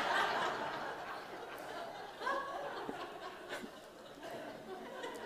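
Congregation laughing, the laughter loudest at first and dying away over the first second or two, with a few scattered chuckles after.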